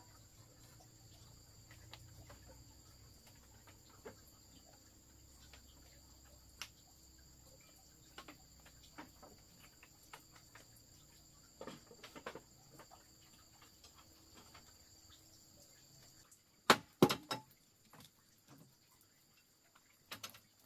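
Steady high drone of crickets and other insects, with scattered small knocks and a few loud, sharp clicks about two-thirds of the way through.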